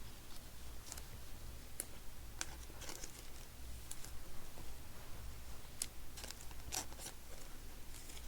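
Trading cards and plastic card sleeves handled on a table: scattered short rustles, crinkles and clicks, with a steady low hum underneath.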